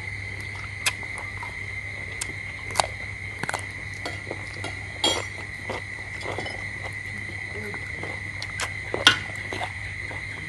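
Scattered light clicks and taps of a spoon on eggshells and dishes as people eat balut at a table, the sharpest about nine seconds in, over a steady high-pitched whine and a low hum.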